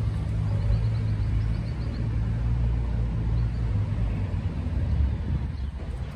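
Low, steady rumble of motor traffic on a town street.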